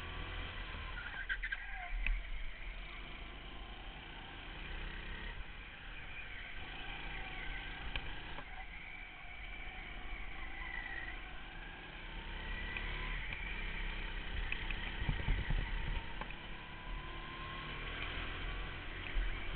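Go-kart engine heard from the driver's seat during a lap, its pitch rising and falling repeatedly as the kart accelerates down the straights and slows for the corners.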